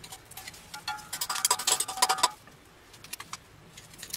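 Pliers clinking, scraping and rattling against the metal casing and corroded cells of a dead 6-volt lantern battery being pried apart: a cluster of sharp metallic clicks with brief ringing about one to two seconds in, then a few lighter clicks.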